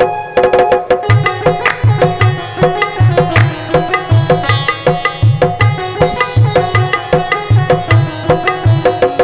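Electronic keyboard playing a quick melodic instrumental interlude in a plucked, sitar-like voice, over a steady tabla-style drum rhythm.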